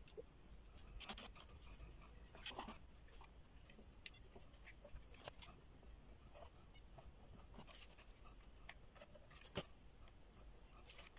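Faint, irregular clicks, taps and light scraping as wooden ice-cream sticks and corrugated cardboard are handled and pressed together.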